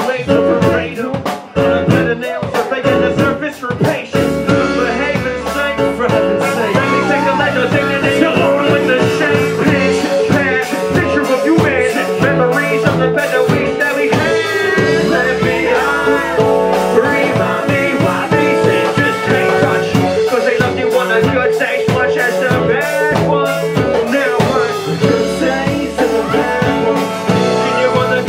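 Live band playing: saxophone, electric bass, keyboards and drum kit, with a vocalist on the microphone.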